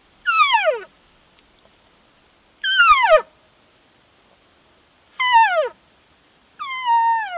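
Four hand-blown cow-elk calls through a long bugle tube, each a short mew sliding down in pitch, about two and a half seconds apart. The last one holds its pitch a moment before it falls.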